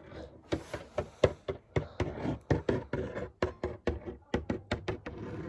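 Rapid, irregular light taps and knocks, about four a second, of small hard toys being handled and knocked against a hard surface.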